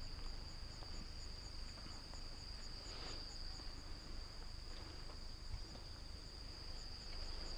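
Night chorus of autumn crickets, among them bell crickets and Emma field crickets: a steady high trill, with a shorter chirp repeating evenly about twice a second above it.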